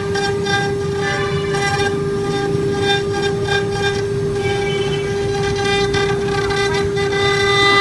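CNC router spindle running at speed with a steady high-pitched whine, with noisy machining sound beneath it.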